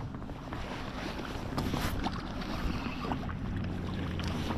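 Low steady hum of a small boat on the water with wind on the microphone, and a few faint clicks.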